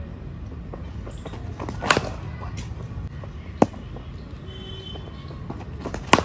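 Sharp knocks of a cricket ball in the nets, the ball pitching and striking the bat: three short hits, the loudest a quick double knock near the end.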